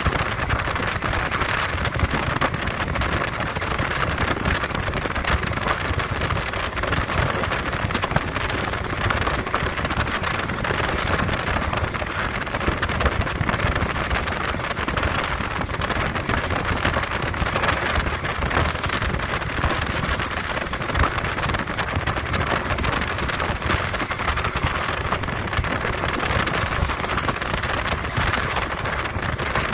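JR West 115-series electric train running at speed, heard through an open window: a steady rush of wind and rail noise over a low rumble from the wheels.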